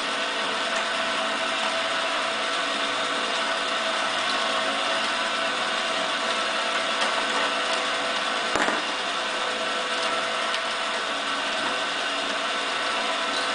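Small battery motor and plastic gears of a toy magnetic fishing game whirring steadily as the pond turns the fish round.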